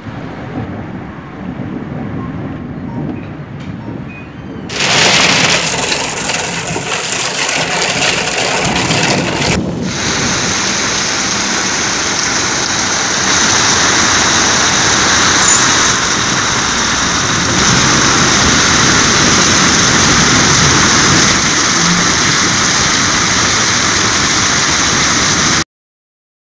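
Heavy rain pouring down, a steady loud hiss. It jumps sharply louder about five seconds in and cuts off abruptly near the end.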